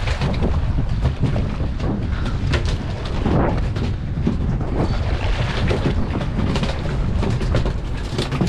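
Wind rumbling on an action camera's microphone aboard a boat at sea, with many scattered knocks and splashes on top.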